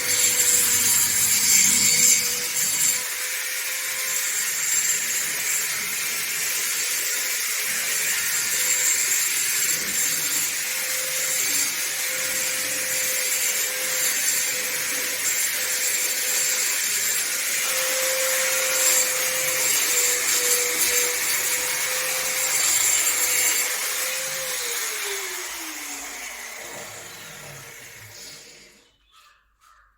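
Electric motor of a power tool running steadily with a whine over a hiss, then winding down from about 24 seconds in, its pitch falling until it stops shortly before the end.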